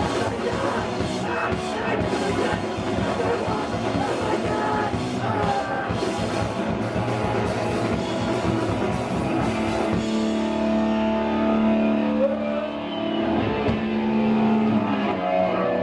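Live hardcore punk band playing loud, with distorted guitars and drums. About ten seconds in, the drumming stops and held notes ring on.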